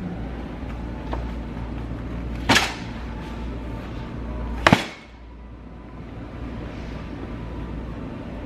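Two sharp bangs about two seconds apart over a steady low hum, the second one the louder.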